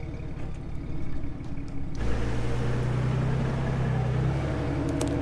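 A vehicle engine running steadily with a low, even hum. About two seconds in it becomes abruptly louder and deeper, then holds steady.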